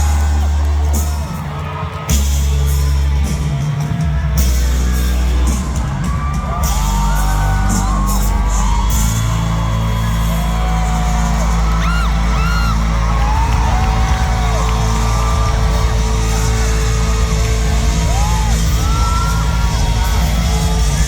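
A live band's amplified music with a heavy, steady bass, while the audience whoops and screams over it.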